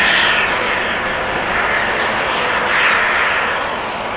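Jet airliner engine noise: a steady, hissing rush that swells twice, near the start and again about three seconds in.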